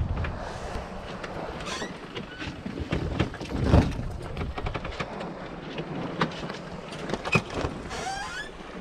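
Clattering knocks and creaks aboard a sailboat under way, with one heavy thump about four seconds in and a short squeak near the end.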